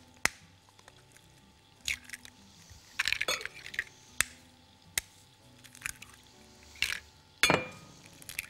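Scattered clinks and knocks of kitchen utensils and dishes, about eight separate strikes, the loudest near the end with a short ring, over faint background music.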